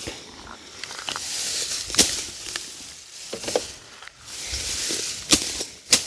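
Machete swishing through grass and weeds, with a rustling hiss and a few sharp cutting strikes: one about two seconds in and two close together near the end.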